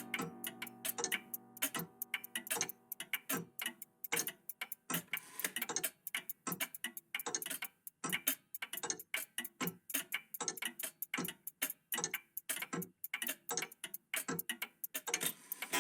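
Old mechanical clocks ticking out of step with one another, a dense, uneven run of several ticks a second. A ringing tone dies away over the first couple of seconds.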